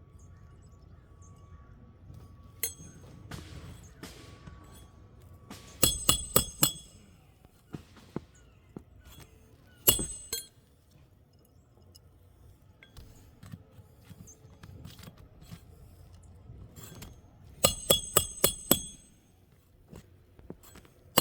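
Roofer's hatchet driving roofing nails into laminate shingles: a quick run of about five ringing metal-on-metal strikes about six seconds in, a single blow near ten seconds, and another run of about six strikes near the end.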